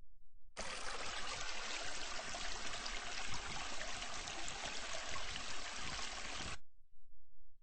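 Water running steadily for about six seconds, starting and cutting off abruptly.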